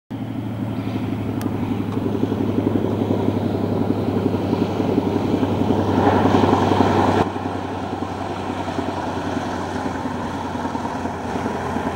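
Single-engine floatplane's propeller engine running steadily as the plane comes in low and lands on the lake, its floats throwing spray. The sound is loudest around six to seven seconds in and drops abruptly just after.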